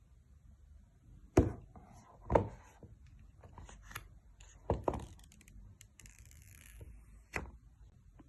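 Phone packaging being handled during an unboxing: about five light knocks as the box and its pieces are set down or tapped, with a stretch of rustling and scraping near the end.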